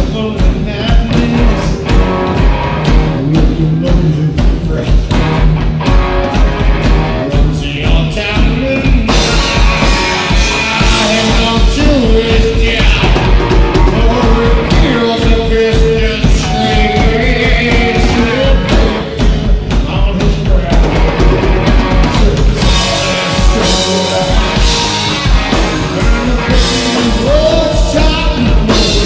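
Live rock band playing at full volume: electric guitar, bass guitar and drum kit with a steady driving beat, and a man singing into the microphone.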